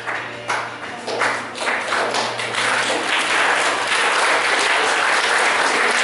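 Theatre audience applauding, the clapping building up over the first couple of seconds and then holding steady, while the music underneath fades out.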